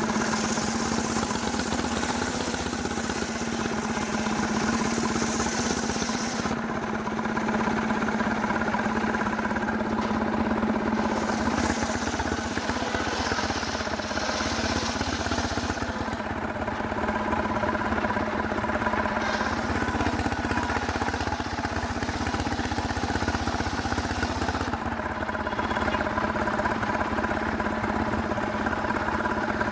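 Engine-driven sawmill running at a steady speed while cutting very hard wood, with a hissy cutting sound that fades and returns every few seconds.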